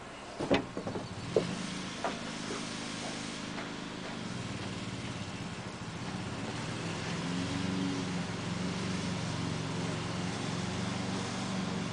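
M977 HEMTT's Detroit Diesel V8 idling steadily, growing somewhat louder about seven seconds in. A few sharp knocks in the first two seconds.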